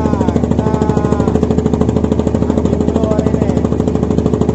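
Fishing boat's engine running steadily with a fast, even thumping pulse. A few brief voice fragments are heard over it.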